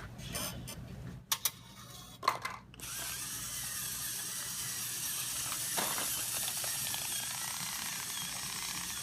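A few sharp clicks, then from about three seconds in a small VEX robotics motor runs steadily with a faint whine, turning the gears of a vending machine's dispenser.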